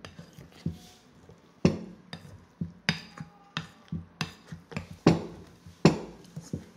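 Metal potato masher pressing a thick liver-and-almond mixture in a glass bowl, clacking against the glass in repeated, uneven knocks, two or three a second, with a few much louder strikes.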